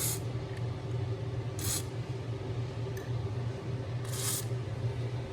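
Three short hisses of a WD-40 aerosol can being sprayed onto the electric scooter's squeaking parts, the last one the longest, over a steady low hum.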